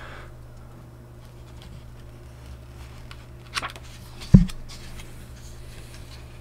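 Handling noise from leafing through a printed booklet: a brief paper rustle about three and a half seconds in, then a single sharp thump, over a steady low hum.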